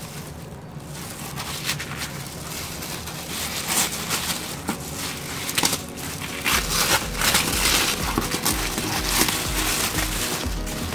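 White paper wrapping crinkling, rustling and tearing as it is pulled off a cardboard shoebox. Background music whose steady bass beat comes in about six and a half seconds in.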